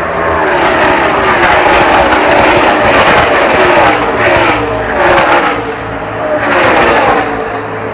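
A field of NASCAR stock cars passing at racing speed, their V8 engines falling in pitch as car after car goes by. It swells with louder surges as packs of cars pass.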